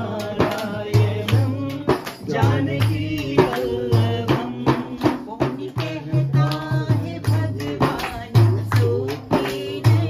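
A woman singing a song, accompanied by a hand frame drum beaten in a steady rhythm and by hand claps.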